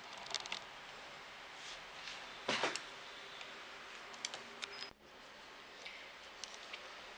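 Faint handling sounds of a plastic pompom maker wound with yarn: a few light plastic clicks and taps as its arms are moved, with one louder brief rustle or knock about two and a half seconds in, over a low steady hiss.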